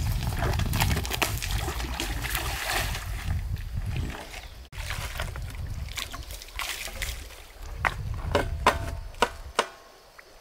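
Water sloshing and splashing in shallow water. A low rumble runs under the first few seconds, then breaks off abruptly. Several sharp splashes and slaps follow near the end.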